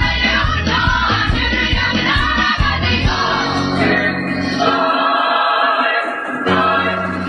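An ensemble beating upright drums with sticks over a backing track with choir singing. The rapid hits and heavy beat drop away after about four seconds, leaving held sung chords, and the beat comes back briefly near the end.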